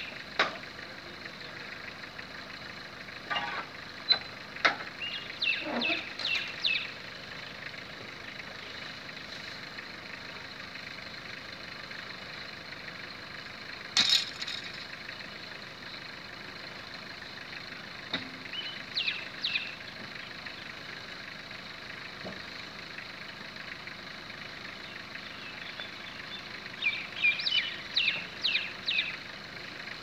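Small birds chirping in three short bursts of quick, high chirps, over a steady background hiss. A few sharp clicks and one louder knock about halfway through.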